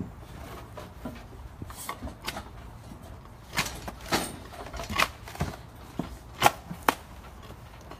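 Irregular sharp knocks and clicks, about a dozen, the loudest coming in the second half over a faint steady low hum.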